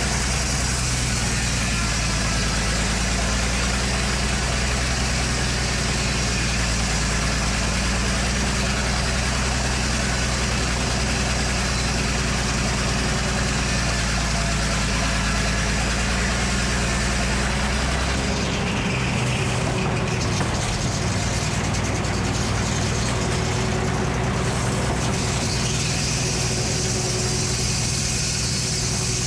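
Engine-powered Frick circular sawmill running steadily, with the sound changing about two-thirds of the way through.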